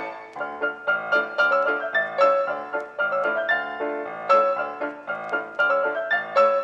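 Background piano music: a quick, steady run of short notes, several a second.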